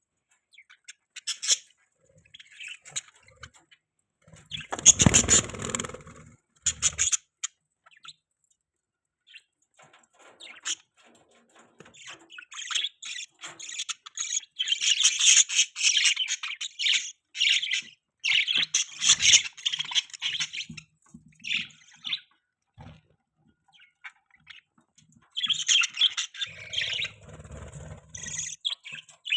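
Budgerigars chirping and chattering in rapid high-pitched bursts, busiest in the middle and near the end. About five seconds in there is a short, louder noisy burst, such as a rustle or thump.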